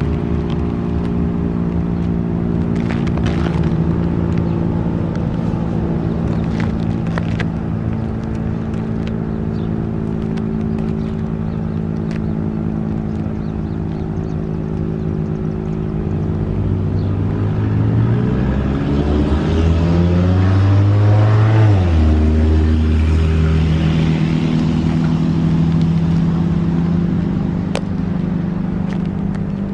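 Federal Sign & Signal STH-10A outdoor warning siren sounding a loud, steady tone. About two-thirds of the way in a car passes, its engine note rising and then dropping away.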